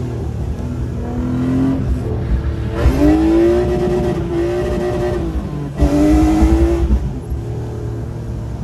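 BMW E36's engine heard from inside the cabin, its revs rising and falling several times as the car is driven hard, with a brief sharp drop in revs just before six seconds in, over tyre and road noise.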